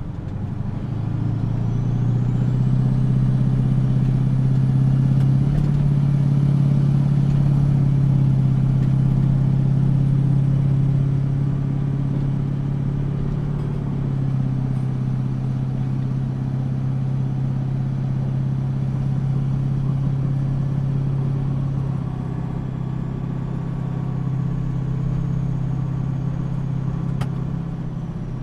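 Septic truck's engine running under load as it drives, a steady low drone whose note changes in steps a few times, with a faint high whine that rises over the first couple of seconds.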